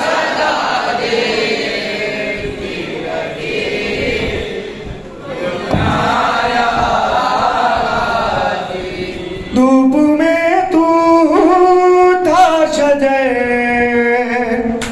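A group of men chanting a noha, a Shia lament, together. About nine and a half seconds in, a single male reciter's voice takes over through a microphone, louder and clearer, singing a drawn-out line with sliding notes.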